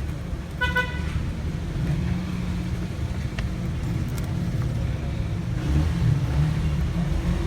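Steady low rumble of road traffic, with one short car horn toot just over half a second in.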